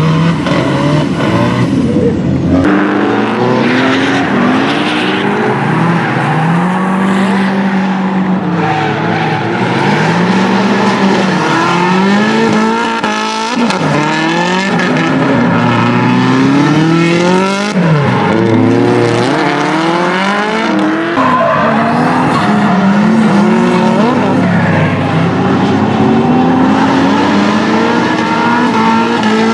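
Drift car engines revving up and down over and over as the throttle is worked through the slides, with tyres squealing on the tarmac. The team says the second car to pass is misfiring.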